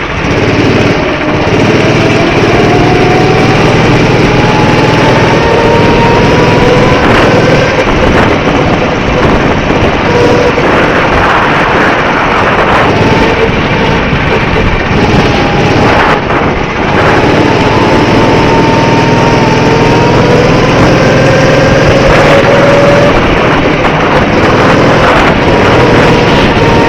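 Go-kart's small engine running hard, its pitch climbing slowly for several seconds at a time and dropping back a few times in between.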